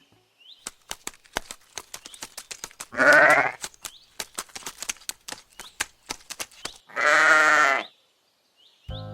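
Sheep bleating twice, two wavering calls under a second each about four seconds apart, over a steady string of irregular small clicks and taps.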